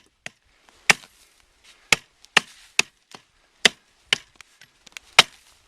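A Fire Hawk hatchet chopping a skinny sapling near its base: about nine sharp, separate blows of the blade into the wood, coming at an uneven pace roughly every half second to a second.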